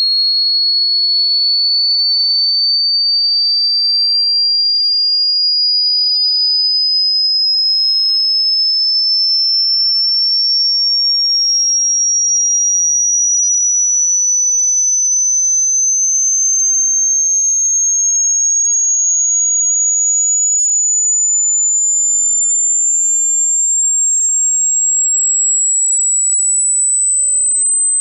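Hearing-test tone: a single high, pure electronic tone gliding slowly and steadily upward in pitch, rising by about an octave, at an even loudness throughout.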